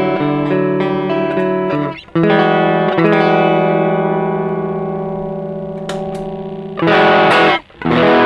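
Electric guitar chords played clean with the overdrive pedal bypassed, struck and left to ring out. Near the end, louder and harsher strums come in as the Caline Green Mamba overdrive is switched on.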